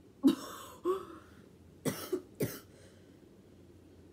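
A young woman coughing: two coughs about half a second apart, then a quicker run of three short coughs about a second later.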